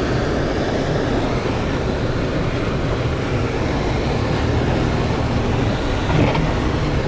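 Steady low rumble of road and engine noise heard from inside a moving vehicle's cabin.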